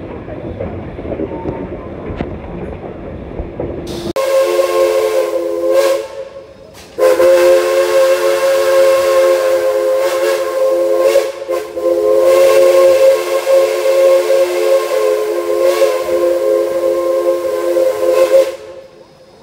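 Steam locomotive whistle sounding a chord of several notes at once over the rumble of the moving train: a blast of about two seconds, then after a short pause a long blast held for about eleven seconds.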